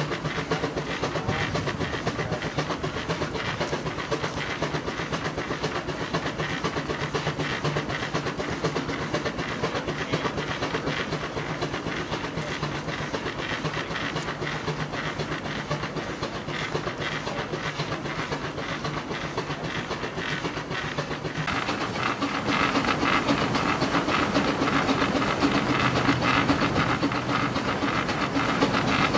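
Keck-Gonnerman steam traction engine working under load against a belted Baker fan, its exhaust chuffing in a fast, steady beat with hissing steam. About three quarters of the way through, the sound turns louder and brighter, with more of the rush of the fan and the running belt.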